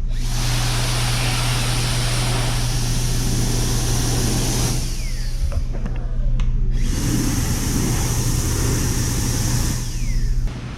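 Electric hand dryer blowing air in two runs, about five and four seconds long, with a break of about two seconds between them, over a steady low hum.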